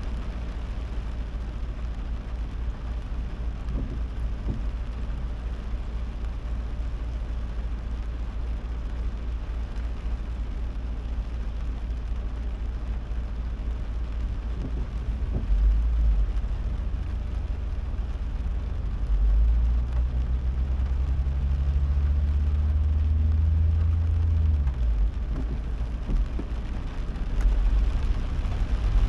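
Car driving on a wet road in heavy rain: a steady low engine and road rumble with a faint hiss of rain. About two-thirds of the way through a louder, deeper engine hum rises slightly in pitch for about five seconds, then drops away.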